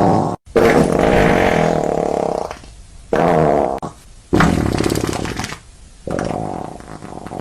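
Comic fart sound effects played one after another, about five in a row, each a buzzing blast lasting from under a second to about two seconds.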